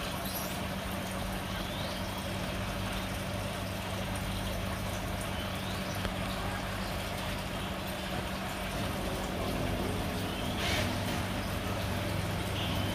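Electric RC buggy (Thunder Tiger EB-4) driving slowly across a tiled floor, its motor giving a few short faint whines, the clearest near the end, over a steady low hum.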